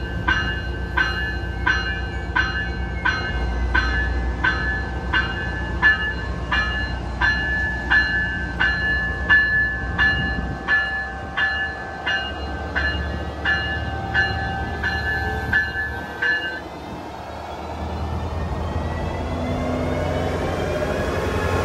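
Railroad grade-crossing warning bell dinging about one and a half times a second over the low rumble of a train. The bell stops about two-thirds of the way through, and a rising drone follows as the train gathers speed.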